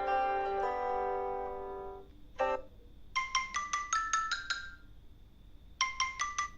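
Samsung Galaxy Tab A 9.7 stock ringtone and notification tones played one after another. The tail of a sustained musical tone fades out over the first two seconds. A single short chime follows, then a quick run of about eight bright plinking notes, which starts again near the end.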